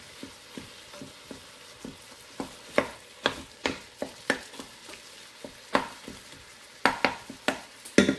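Wooden spoon scraping and knocking against the metal inner pot of an electric multicooker in irregular strokes, a couple a second, as ground beef is broken up and stirred while it browns. Under the strokes is a light, steady sizzle.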